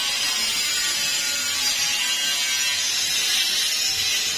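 A power tool running steadily in a truck body workshop: a continuous high-pitched whirring hiss.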